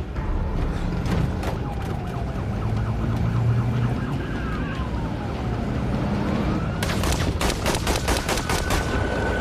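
Humvee engine and road rumble with police sirens wailing behind. About seven seconds in, a rapid burst of rifle fire, roughly seven shots a second for about two seconds.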